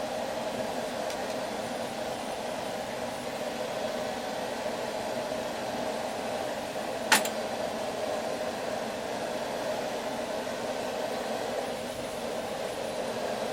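Steady noise of a forge running while a railroad spike heats in it. A single sharp click comes about halfway through.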